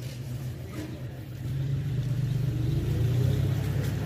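A motor vehicle engine running steadily at idle, heard as a continuous low rumble.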